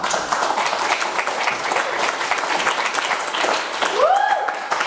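Audience applauding, many hands clapping at once. About four seconds in, a single rising cheer sounds over the clapping.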